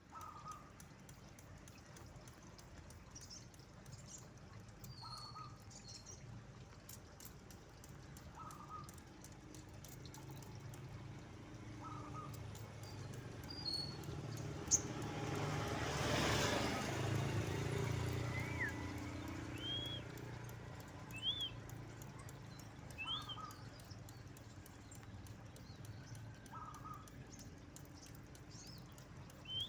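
A sogon bird calling with short chirps every few seconds, adding a few higher whistled notes that rise and fall in the second half. A noisy rumble, like a passing vehicle, swells to the loudest point around the middle and fades again.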